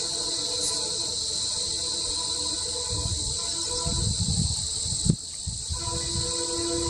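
A chorus of crickets or similar insects, a steady high-pitched buzz. Beneath it run a faint steady hum and a few low rumbles. Everything briefly dips about five seconds in.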